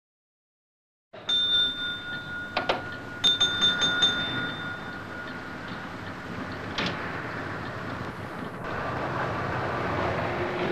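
Railway signal box block bell rung several times in quick strokes, each ring lingering. A few knocks follow, and a rumble builds steadily toward the end.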